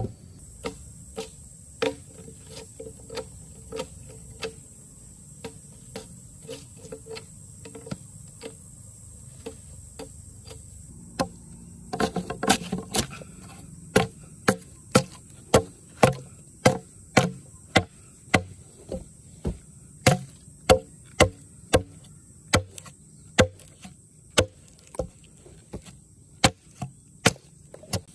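Repeated chopping blows on wood, light and uneven at first, then louder and steady at about one and a half strikes a second from about halfway, with a short clatter just before the change. A steady high insect drone runs behind.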